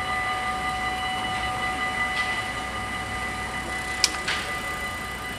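Electronic warning bells of a Dutch automatic half-barrier level crossing ringing steadily while the barrier arms lower. A sharp click about four seconds in as the barriers come down to their stop.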